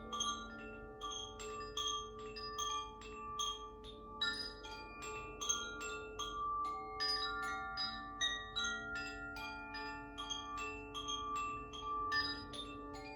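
Makino-style tuned healing chimes struck over and over, about two to three notes a second, each note ringing on long so the tones overlap into a continuous wash.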